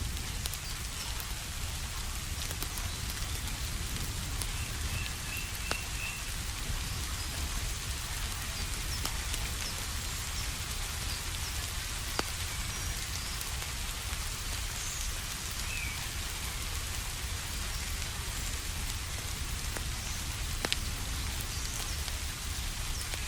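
Steady rain falling on a surface, a dense even patter, with a few isolated sharp clicks and a brief run of faint high chirps about five seconds in.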